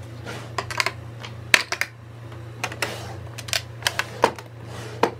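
Hard plastic makeup cases and a vanity drawer clicking and knocking as they are handled, about a dozen sharp clicks at uneven intervals. A low steady hum runs underneath.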